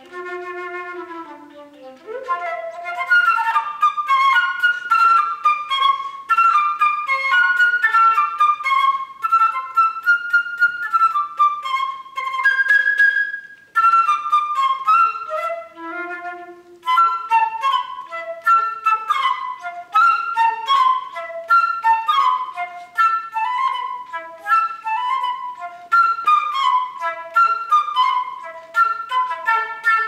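Unaccompanied concert flute playing bird-call-like figures: a few low sustained notes, then from about two seconds in fast runs of short, detached notes high in its range, with a brief low note about halfway through.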